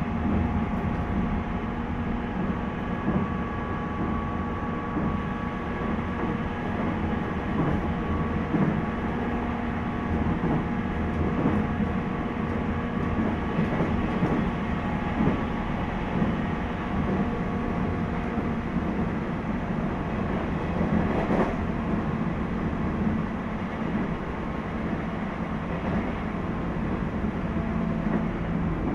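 Ride noise inside a JR East 719-series electric motor car (KuMoHa 719-1) running at speed: steady rumble of wheels on rail with a held motor hum and scattered knocks over rail joints. The uploader suspects this car makes an unusual noise.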